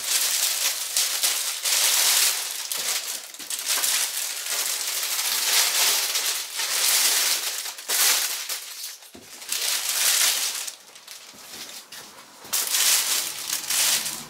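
Clear plastic wrapping crinkling and rustling loudly as it is pulled and handled, almost continuously for the first nine seconds or so, then in two shorter spells later on.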